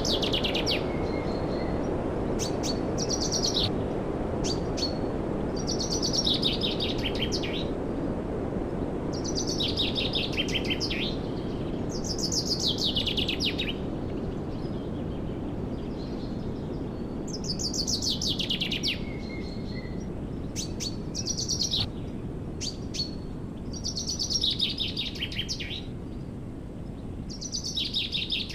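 A songbird repeating a short, high trilled phrase that falls in pitch, about once every three seconds, over a steady low rushing noise.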